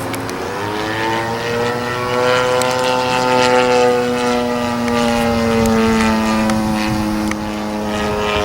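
Radio-controlled aerobatic plane's 50cc two-stroke gas engine and large propeller at full throttle in a vertical climb: the engine note rises over the first couple of seconds, then holds and sags slightly as the plane climbs.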